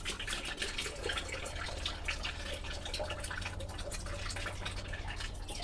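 Leftover coolant dripping and trickling from a just-disconnected heater hose into a foldable drain funnel, heard as many small irregular drips and ticks.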